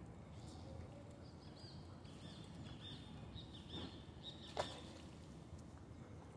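Faint open-air background noise with a few short, high bird chirps, and a single sharp click a little past the middle.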